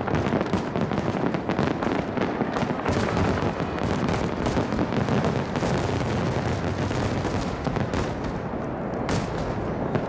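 Fireworks display going off in a dense barrage: continuous crackling and popping of many shell bursts close together, with a sharper bang near the end.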